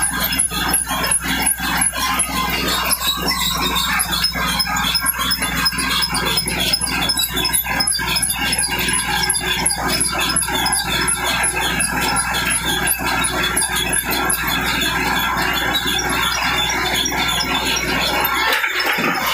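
Stone crusher plant running: rock clattering and grinding through the steel feeder hopper and conveyor, over a steady hum of the plant's motors and a steady high whine.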